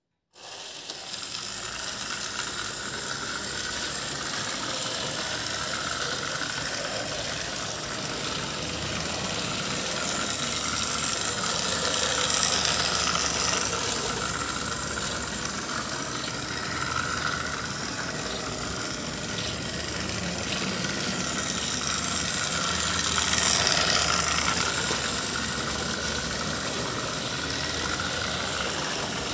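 Small electric motor and gears of an Eheim H0 model trolleybus with trailer whirring steadily as it runs its loop. The sound grows louder as the bus passes close, about twelve seconds in and again near twenty-four seconds.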